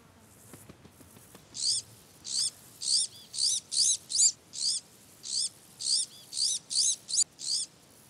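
Iberian azure-winged magpie nestlings begging at the nest: a steady series of high, thin, arching calls, about two to three a second, starting about a second and a half in.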